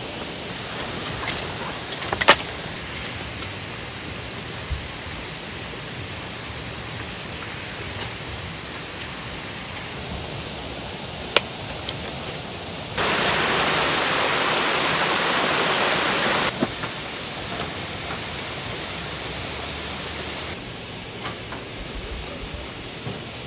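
Folding metal camp table parts clicking and knocking now and then as the table is unfolded and assembled, over a steady hiss of outdoor background noise. The hiss grows louder for a few seconds in the middle.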